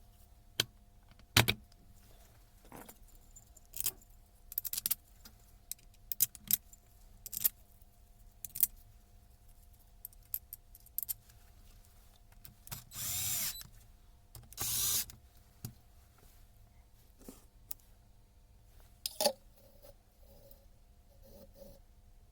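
Metal tool parts clinking and knocking as they are handled, with scattered sharp clicks and two louder short bursts of noise, each under a second, about thirteen and fifteen seconds in.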